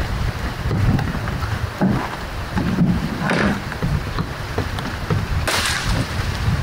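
Wind buffeting the microphone in a steady low rumble, with nipa palm fronds being cut and rustling: two brief crisp swishes, about three and a half and five and a half seconds in.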